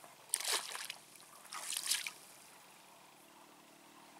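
Water splashing twice, about a second apart, each a short splash, as a caught tench is let go back into the lake.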